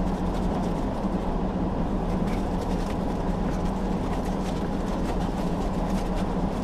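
Steady low rumble of a parked truck idling, heard from inside the cab, with faint light ticks and crackles over it.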